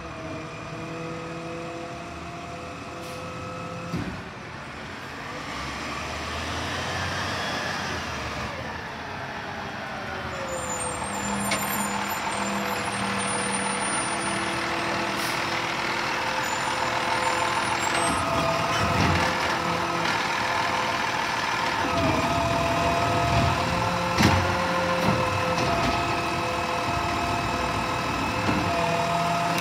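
Peterbilt garbage truck's diesel engine as the truck drives up and slows to a stop, then runs while stationary with a steady whine. A few sharp knocks come in the second half.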